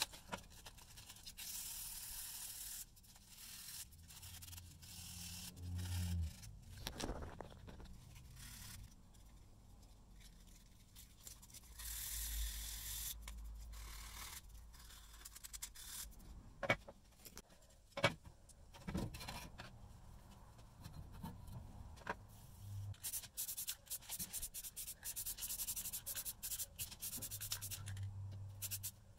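Hand work on a part: bursts of rubbing and scraping that turn into a fast run of short strokes near the end, with two sharp clicks midway.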